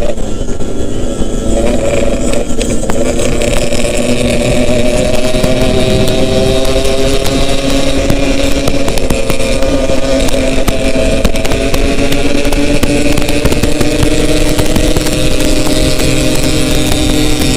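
Yamaha RX-King two-stroke single-cylinder motorcycle engine running under way, its note dipping briefly at the start and then drifting slowly up and down with the throttle.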